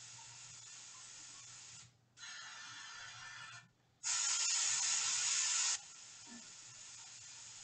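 Airbrush hissing as the trigger is worked in short bursts, spraying paint at a fine dot. Under a fainter steady hiss, a burst of about a second and a half comes around 2 s in, and a louder burst follows from about 4 to 6 s.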